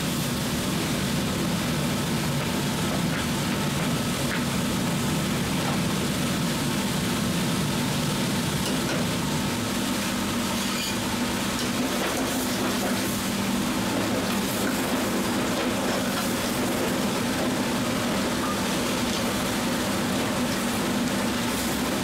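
A wide pan of spicy seafood-and-chicken braise simmering and sizzling as a ladle stirs it, with a few light scrapes, over a steady low rumble.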